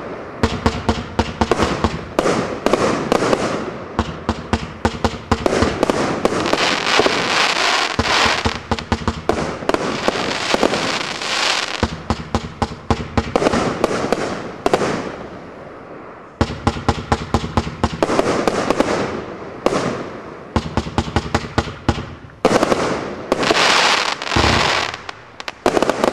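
A 54-shot fanned firework barrage cake firing: a rapid run of sharp launch reports, one after another, with dense hissing and crackling stretches between them. The firing pauses briefly around the middle and again near the end before the last shots.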